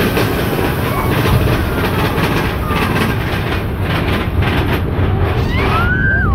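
Mine-train roller coaster cars rattling and rumbling along the track, heard from a seat on board. Near the end a high tone rises, holds briefly and drops away.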